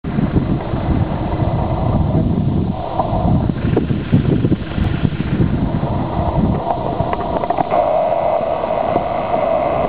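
Wind buffeting the microphone in a heavy, irregular low rumble. A steady engine drone grows more prominent in the second half.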